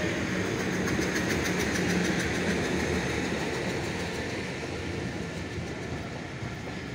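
Passenger train coaches rolling along the track: a steady rumble and rattle of steel wheels on the rails that swells about two seconds in and then slowly fades.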